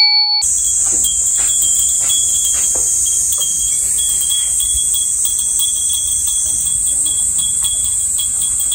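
A steady high-pitched drone of insects, with glass wind bells (furin) tinkling in short, irregular notes over it.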